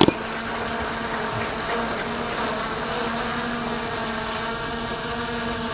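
A steady buzzing drone with faint held tones, unchanging throughout, with a sharp click right at the start.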